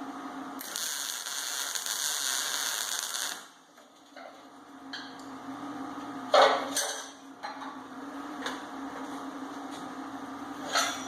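A welding arc running with a steady hiss for about three seconds, then stopping. About six and a half seconds in comes a sharp metal clank, with a smaller one near the end, over a steady low hum.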